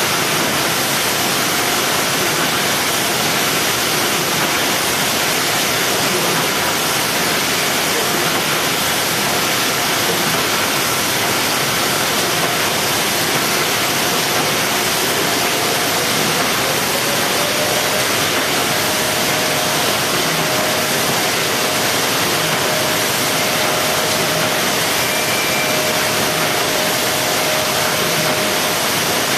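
Steady, even machine noise of a box conveyor and robotic palletizer line, with a faint whine that rises in pitch about halfway through and then holds steady.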